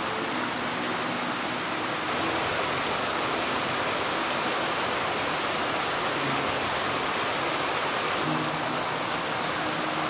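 Mountain stream rushing steadily, a constant even wash of flowing water.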